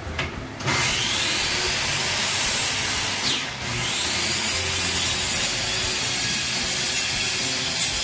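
Electric circular saw starting up about a second in and cutting steadily along a sheet of board. The motor briefly drops and picks back up a little before halfway, then runs on at full speed.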